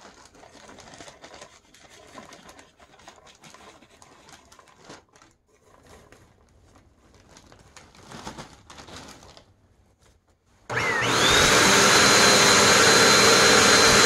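Popcorn poured from a plastic zip-top bag onto a plywood board, the bag crinkling faintly. About eleven seconds in, a Bissell PowerForce Compact bagless upright vacuum switches on and runs loudly, its motor whine rising and then holding steady at a high pitch.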